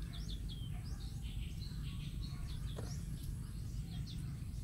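Small birds chirping in many quick short calls over a steady low rumble.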